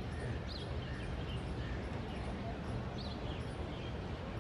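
Steady low rumble of a diesel locomotive idling at a station platform, with short high bird chirps repeating every second or two.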